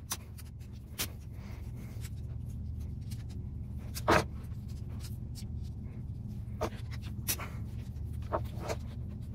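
A hex T-handle wrench being turned to back a bolt out of an RC monster truck's metal servo saver: scattered light metal clicks and scraping as tool and parts are handled, the sharpest click about four seconds in, over a low steady hum.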